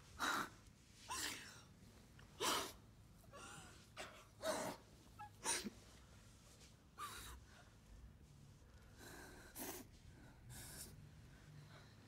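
A couple's sharp, breathy gasps and sighs of passion, about one a second at first and sparser in the second half.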